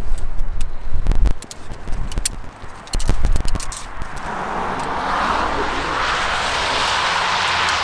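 Sharp clicks and knocks of shock-corded tent pole sections being folded and handled. From about four seconds in, a steady rushing noise of road traffic builds and holds.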